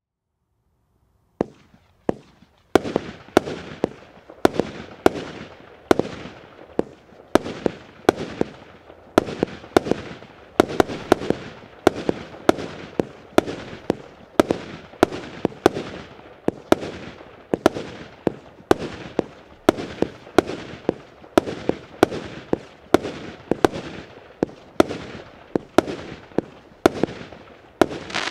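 Multi-shot fireworks battery (cake) firing shot after shot in a steady rhythm, about one and a half to two sharp reports a second, each followed by a short fading hiss as the small gold bursts break. The firing starts about a second and a half in and keeps going.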